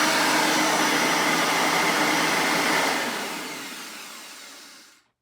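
Bissell 9 amp soft-bag upright vacuum cleaner running steadily, then winding down after about three seconds and fading out over the next two as the motor is switched off.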